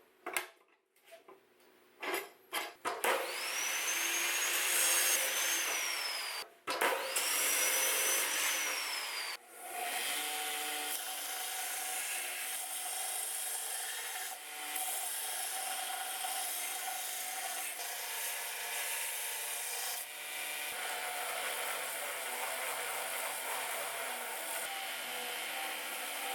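A power tool working wood: a few clicks, then two short runs of a few seconds with a high motor whine that rises and falls, then one long, steady run.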